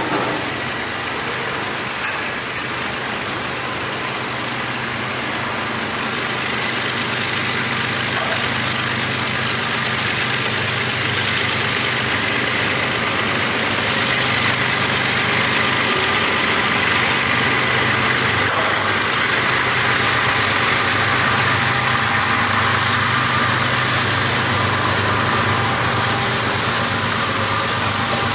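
Freight train rolling past: steady rumble and rattle of cars on the rails, with a few clicks early on. A mid-train pair of diesel locomotives (distributed power) passes, its engines adding a low drone as the sound grows louder in the second half.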